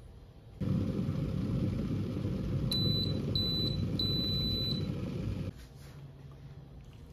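De'Longhi electric kettle heating water with a steady low rumble that cuts off suddenly about five seconds in, its base beeping three times midway, a short beep then two longer ones.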